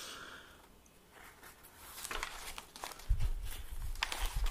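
Thin, crinkled paper pages of a handmade notebook rustling and crackling as they are handled and turned. The crackling starts about a second and a half in and grows busier near the end, with a couple of low handling bumps.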